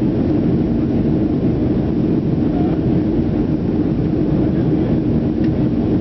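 Cabin noise inside a Boeing 737-300 climbing after takeoff: the steady roar of its CFM56-3 turbofan engines and rushing air, with a low steady drone under it.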